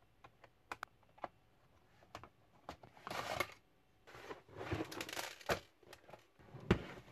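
Plastic laptop casing being handled and turned over on a work mat: a few light clicks, then rubbing and scraping of plastic on the mat, and a single knock near the end.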